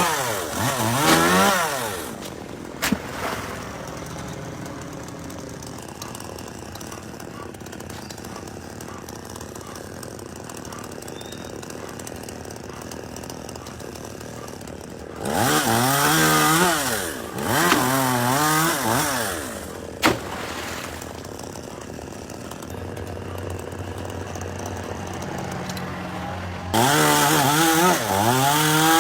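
Chainsaw idling, revved up in short throttle bursts that rise and fall in pitch a few times, then held at high revs near the end. Two sharp clicks stand out, one early on and one in the middle.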